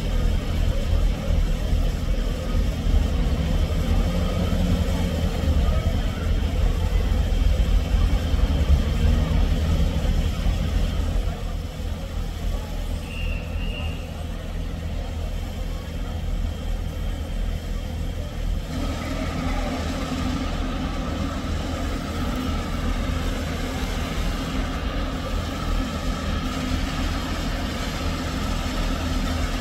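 Deep, steady rumble of a railway engine running at the station. It is loudest for the first ten seconds or so and eases at about eleven seconds. From about nineteen seconds a steadier hum with a few held tones runs underneath, with voices in the background.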